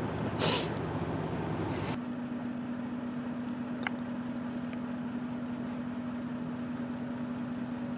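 Faint steady background noise with a low hum; about two seconds in the sound changes and a single steady low tone holds to the end.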